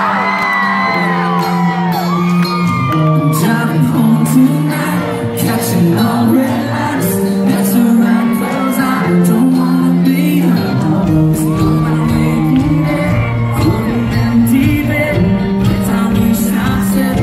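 Live band playing a country-rock song, electric guitar and bass under a male voice singing, heard from inside the crowd in a large hall. Shouts and whoops from the audience near the start.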